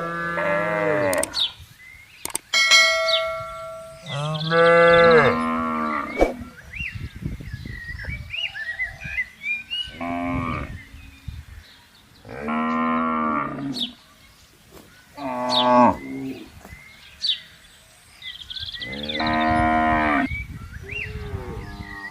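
Cattle mooing repeatedly: about six long, drawn-out moos spaced through the stretch, some bending in pitch. A brief ringing tone sounds about three seconds in.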